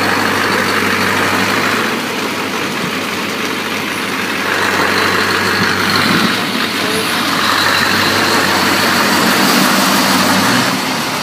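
Scania V8 truck engine idling steadily.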